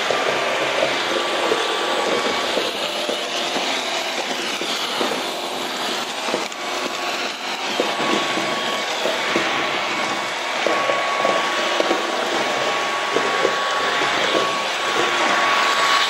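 Shark Detect Pro IW3611 cordless stick vacuum running, a steady motor whine over a rush of suction air, with scattered ticks and rattles as rice grains and crumbs are sucked up.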